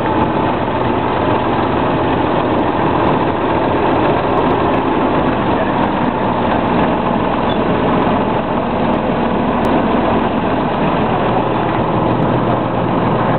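John Deere tractor's diesel engine running steadily, loud and close, with an even hum that does not rise or fall.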